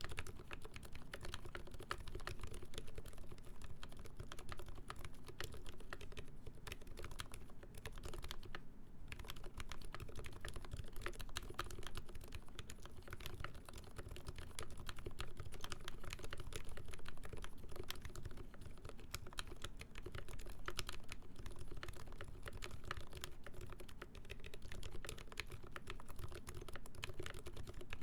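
Continuous fast typing on a TMO50v2 mechanical keyboard with a full brass plate, lubed ZealPC Roselios switches with 67g springs, and GMK keycaps: a steady stream of key clicks, with a brief lull about nine seconds in.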